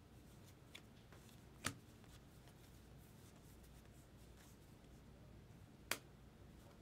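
2024 Topps Heritage baseball cards being handled: faint card-on-card sliding with two sharp clicks about four seconds apart, over near silence.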